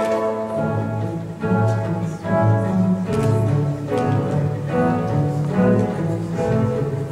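Classical orchestral music with bowed strings, the low strings moving through a steady line of notes, each held about half a second.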